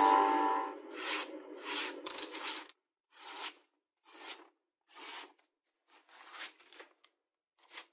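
A freshly sharpened knife slicing through paper in a series of short, hissing cuts, about one a second, testing the edge for sharpness.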